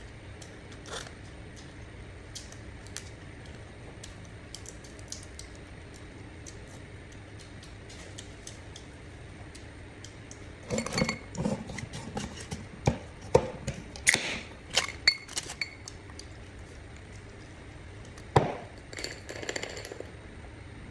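Scattered clinks and knocks of dishes and utensils being handled. A few faint clicks come first, then a busy run of sharp clinks about halfway through, and a few more near the end.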